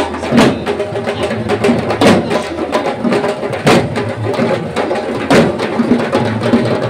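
Drums beaten hard in a fast, steady rhythm, with a heavier accented stroke about every second and a half, over a steady pitched musical backing.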